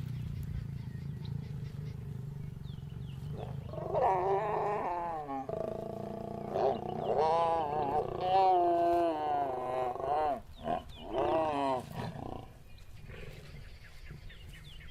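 Lions snarling and growling during mating: a low rumble, then from about four seconds in a run of loud, pitch-bending snarls lasting several seconds, dying down near the end.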